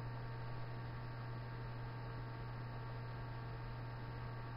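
Steady low electrical hum with an even background hiss, unchanging throughout, typical of the recording chain's noise floor.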